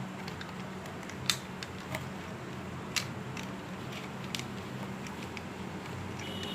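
Sharp plastic clicks and snaps, a few seconds apart, as the parts of a Tobot Athlon mini transforming toy robot are handled and locked into place, over a steady low hum.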